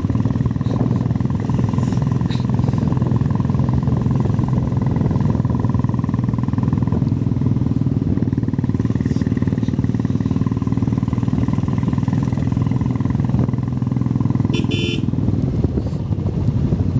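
Motorcycle engine running steadily while riding, heard from the rider's seat. A short horn beep comes about three-quarters of the way through.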